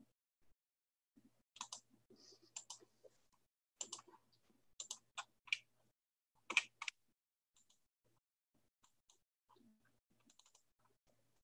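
Faint, irregular clicking and tapping of computer keyboard keys, in short clusters that thin out and grow fainter after about seven seconds.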